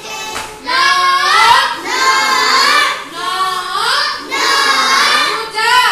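A class of young children singing a counting rhyme together, in short phrases about a second long with brief breaks between them.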